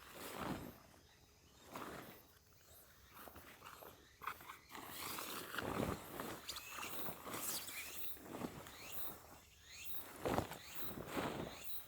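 Irregular footsteps and rustling on the ground outdoors, soft swishing steps every second or two.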